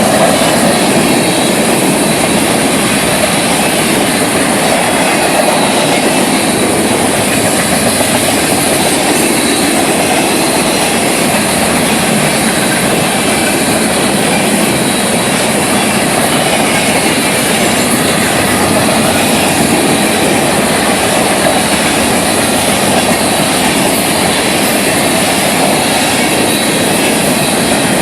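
Freight cars of a Florida East Coast Railway train rolling past close by: the steady, loud noise of steel wheels running on the rails, unchanging throughout.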